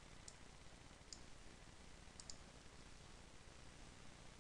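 Near silence with a few faint computer mouse clicks: a single click, another about a second later, then a quick double click.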